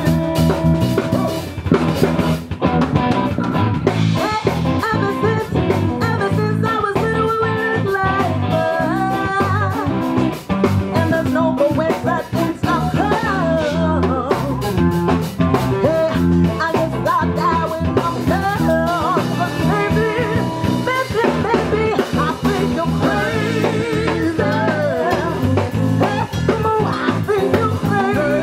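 Live band playing: a woman singing over a drum kit, electric bass and electric guitar.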